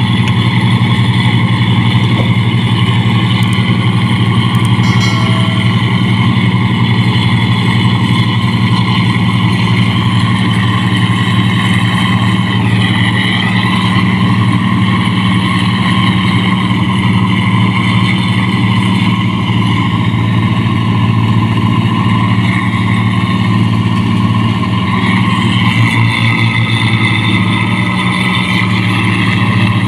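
Rice combine harvester's diesel engine running steadily under load while harvesting, a low drone with steady higher whining tones from the machinery over it.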